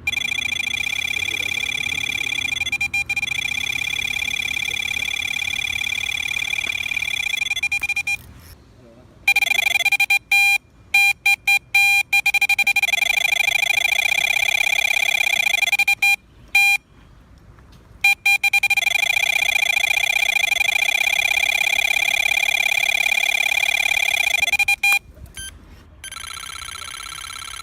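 Electronic carp bite alarm screaming out one long continuous high tone as a carp runs, taking line. It breaks off twice for a second or two and stutters into quick beeps around ten to twelve seconds in. Near the end a lower, quieter steady tone takes over.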